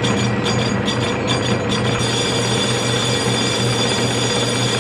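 CD6245B metal lathe running with a cast flywheel spinning in the chuck: a steady hum with a high whine. A regular ticking, about four a second, stops about two seconds in.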